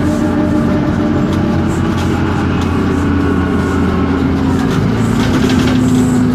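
Isobus City 1200 bus underway, with its MAN D0836 diesel and ZF Ecomat 6-speed automatic drivetrain running. A steady hum carries a drivetrain whine that drifts slightly lower in pitch. Light rattling clicks come near the end.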